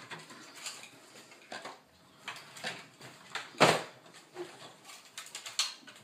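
Irregular small clicks and knocks of plastic and metal parts being handled and fitted by hand inside a tape autoloader's chassis, with the loudest knock a little past halfway.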